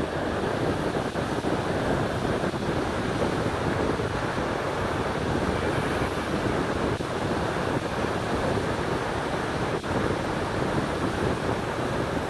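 Steady rush of white water pouring over the wide, low cascade of the Snake River falls, with wind buffeting the microphone.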